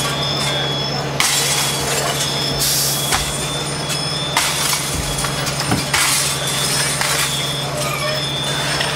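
Fire-ground noise: a fire apparatus engine runs with a steady low drone. Several short, sharp noisy bursts rise over it, and faint brief high tones come and go.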